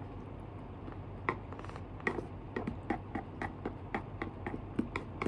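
Chopsticks clicking and tapping against a plastic takeout container while picking up food, a dozen or so light irregular clicks starting about a second in, over a low steady room hum.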